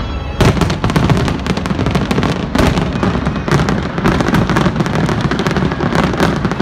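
Aerial fireworks barrage: a dense, rapid run of bangs and crackling that starts suddenly about half a second in and keeps going without a pause.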